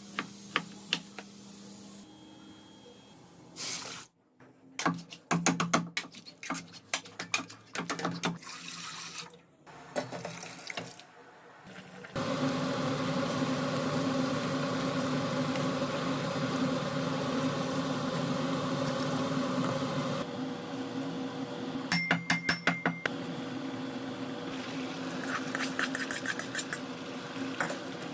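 Kitchen food-preparation sounds: a run of sharp clicks and taps, then, from about twelve seconds in, a steady rushing noise with a low hum under it.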